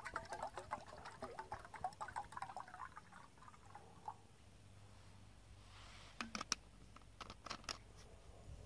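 Water poured from a bottle into a small steel cooking pot, splashing for about four seconds before it stops, followed by a few sharp clicks and knocks.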